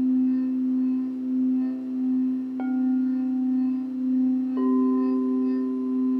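Singing bowls ringing: a steady low tone that slowly wavers in loudness. A bowl is struck about two and a half seconds in and another about four and a half seconds in, each adding a new, higher ringing tone that sustains.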